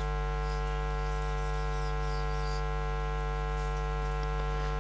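Steady electrical mains hum with many evenly spaced overtones, unchanging throughout.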